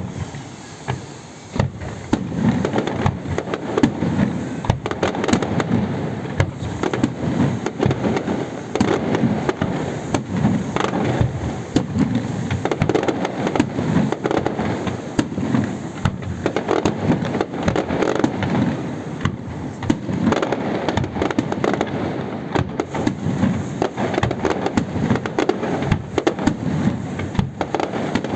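Fireworks display: a dense, continuous barrage of shells bursting, with rapid bangs and crackling many times a second. It builds up over the first two seconds.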